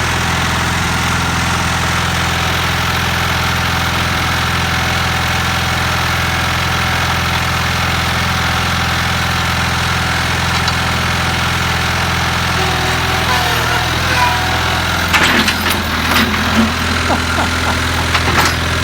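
Tractor engine running steadily at idle, with a few sharp clanks and knocks near the end.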